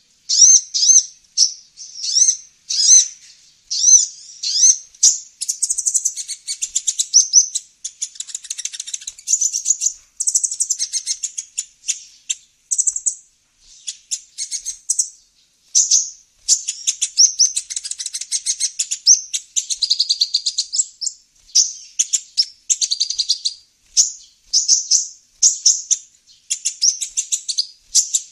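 Sunbird ('kolibri ninja') song used as a trapping lure: short, high, sharp chirps repeated about once or twice a second, running into a denser stretch of continuous twittering and trills through the middle.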